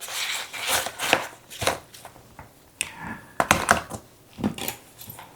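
Small hard items being handled and packed into a fabric sling bag: irregular clicks and knocks with rustling, a quick cluster of sharper knocks about halfway through.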